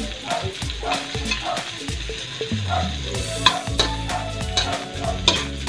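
Sliced red onions sizzling in oil in a metal wok while a spatula stirs them, scraping and clicking against the pan, with sharper scrapes in the second half.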